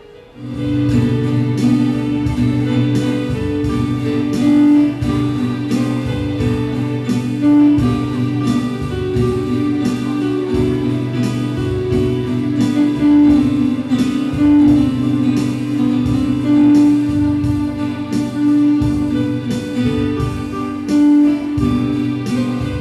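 Instrumental music: a melody of held notes over a steady percussive beat, starting just after the opening.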